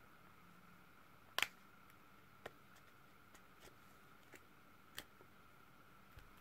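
Scattered small plastic clicks and ticks as a thin plastic pick and fingernails work along the edge of a Turkcell T60 smartphone, prying its screwless housing apart. There is one sharper click about a second and a half in and a few fainter ones after it, over a faint steady hum.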